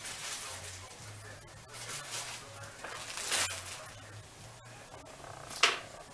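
Kitchen noises at a stove where ground beef is browning in a pan: a hiss, swells of rustling plastic wrapper, and one sharp clatter near the end, over a low hum.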